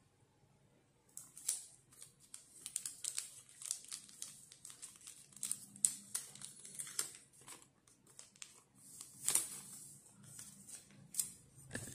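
Smartphone retail box and its plastic packaging being handled: crinkling and rustling with scattered light clicks and taps, starting about a second in.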